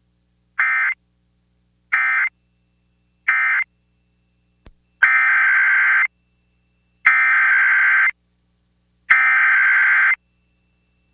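Emergency Alert System SAME digital data bursts, a harsh buzzing warble: three short end-of-message bursts close the previous tornado warning, then three longer header bursts about two seconds apart open the next alert.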